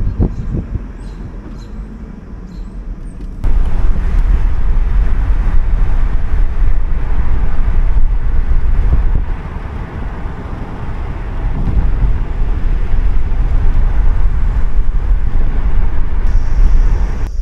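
A car driving along a road, its road noise mixed with wind buffeting the microphone. About three and a half seconds in, the rumble suddenly gets much louder and stays heavy. Near the end, a steady high insect drone joins in.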